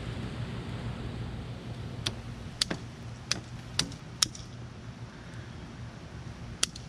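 Half a dozen sharp clicks, spaced irregularly, as a plastic zip tie is cinched around a wiring harness and its tail snipped off with side cutters, over a steady low hum.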